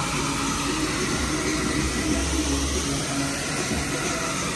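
Steady rushing hiss of water from a wide-open fire hydrant spraying across the street, with a car engine running low underneath.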